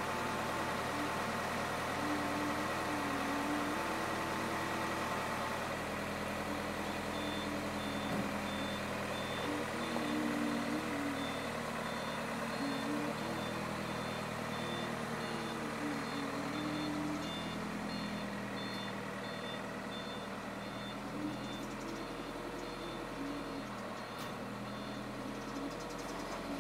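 Truck engine running steadily, with a reversing alarm sounding a regular series of short high beeps that starts several seconds in and stops near the end.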